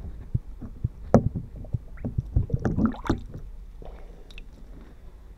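A plastic smoothie bottle handled underwater and heard through a hydrophone: a run of knocks and clicks, the sharpest about a second in and a dense cluster between two and three seconds, then dying down.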